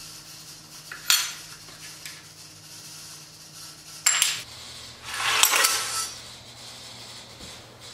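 Small bent sheet-metal pieces clinking against a plywood bench. There is a sharp ringing clink about a second in and another about four seconds in, then about a second of metal scraping and rattling on the wood.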